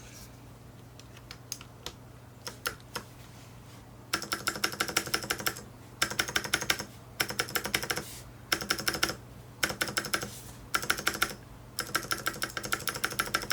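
Typing on a Varmilo Pro Panda keyboard with clicky Cherry MX Blue switches, lubed with Krytox 205g0 through the top without desoldering. A few single keypresses come first, then from about four seconds in, bursts of fast typing with short pauses between them. The lube has taken away only a little of the rattle, which the owner puts down to using too little lube.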